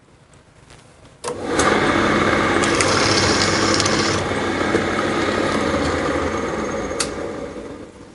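Benchtop drill press motor starting with a click about a second in and running steadily while its bit drills out brass rivets holding the lining on a clutch hub. The sound tapers off near the end.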